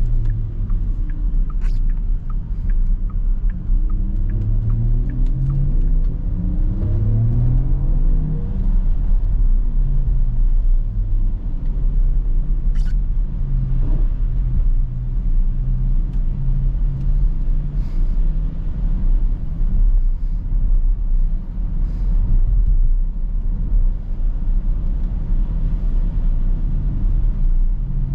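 Porsche Macan 4 Electric driving: a steady low road and tyre rumble, with rising tones from the electric drivetrain as it speeds up between about four and nine seconds in.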